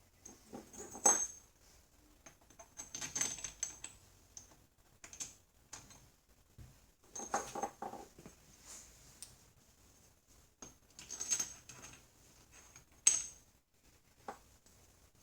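Small steel parts clinking and rattling as they are handled and fitted: clamps, nuts and studs knocking against each other and the steel vise in irregular groups, with sharp ringing clinks about a second in and again near the end.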